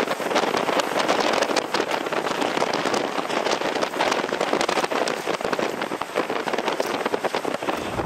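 Hurricane-force storm wind, a steady dense crackling hiss with little low rumble.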